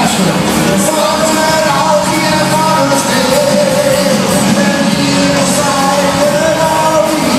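Live band music with singing, loud and continuous, with held notes.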